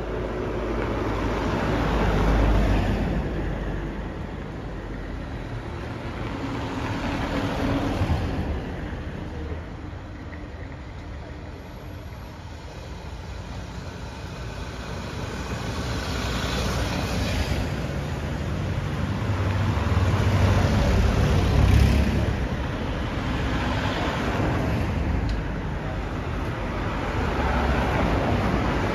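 A line of SUVs and cars driving past one after another: several swells of engine and tyre noise, each rising and fading as a vehicle goes by, over a low steady rumble.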